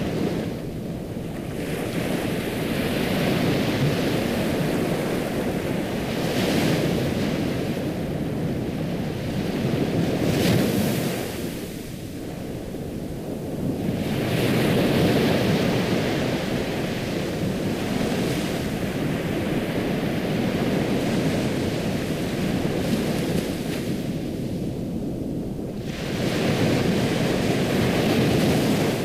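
Ocean surf: a steady rush of waves washing onto a shore, swelling louder every several seconds as each wave breaks and then falling back.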